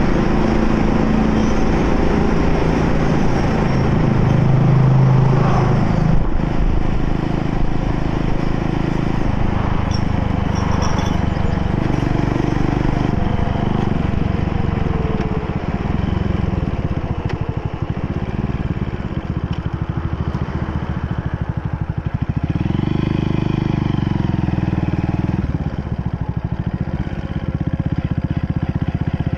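Motorcycle engine running while riding, its pitch shifting up and down in steps through the ride.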